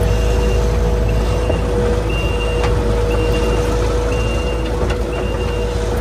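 Tracked skid steer's engine running steadily under load with a constant whine. A backup alarm beeps about once a second.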